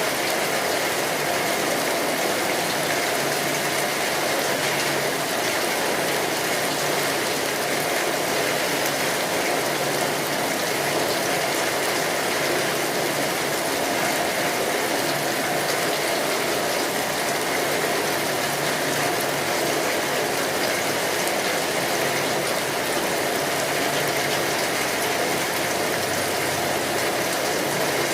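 Steady heavy rain drumming on a tin roof, a dense unbroken patter, with faint fire crackles mixed in.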